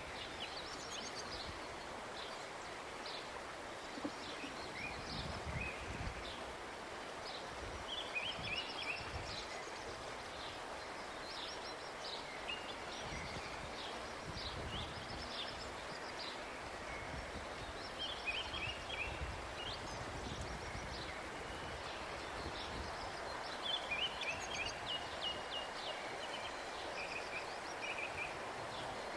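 Small birds chirping repeatedly in short clusters over a steady outdoor hiss, with occasional soft knocks from watermelons being scooped out and cut at the table.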